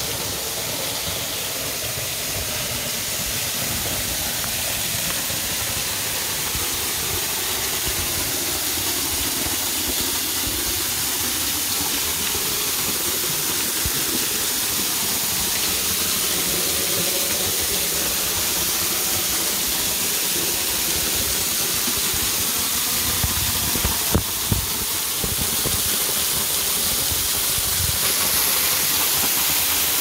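Thin waterfall falling free from a rock ledge and splashing onto the rocks and pool below: a steady hiss of falling water and spray that grows a little louder as the microphone moves in behind the falling water. A few brief taps late on.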